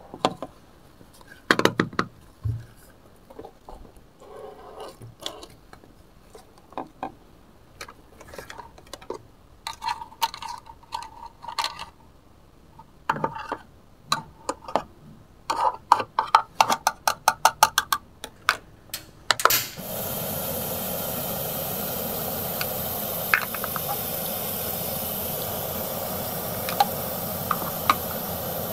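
Plastic toy kitchen pieces being handled: scattered clicks and quick rattling clatters of plastic on plastic. About twenty seconds in, a steady frying sizzle starts and keeps on, with a few light clicks over it as the lid goes onto the toy pan.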